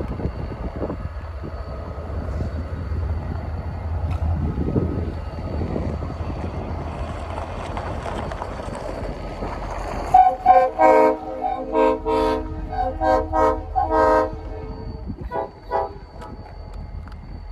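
Low diesel locomotive rumble, then from about ten seconds in a rapid string of about ten short blasts over four seconds on two locomotive air horns, a Leslie RS-3L and a Nathan P5, sounding together, followed by two brief toots.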